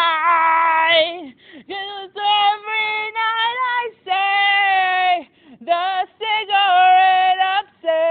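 A high solo voice singing unaccompanied, in short held phrases that slide in pitch, with brief gaps between them.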